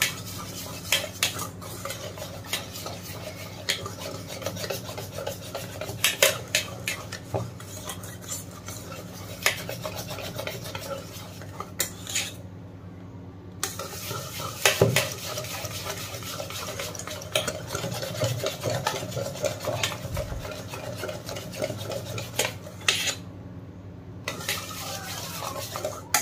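Wire whisk beating a runny maida batter in a stainless steel bowl, with steady scraping and quick clinks of the wires against the metal sides. The beating pauses briefly twice, once about halfway through and once near the end.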